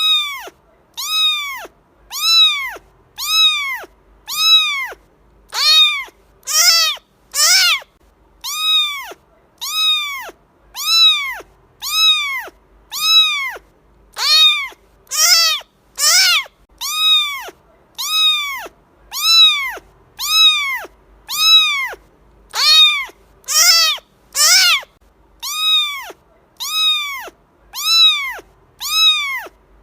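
Cat meowing over and over, one short meow about once a second, each rising and then falling in pitch.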